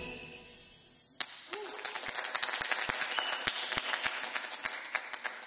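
The band's final chord rings out and fades, then after a moment of quiet an audience starts applauding about one and a half seconds in, with steady clapping after that.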